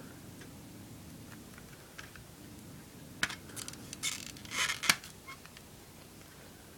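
Plastic CD jewel case being handled and opened. A run of clicks and short scraping creaks starts about three seconds in and ends in one loud sharp snap as the lid comes open.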